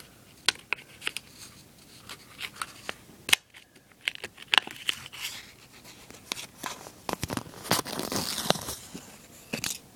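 Replacement vinyl stickers being peeled off their backing sheet and pressed onto a Rubik's cube, with scattered small clicks and taps from handling the cube. A longer peeling rustle comes near the end.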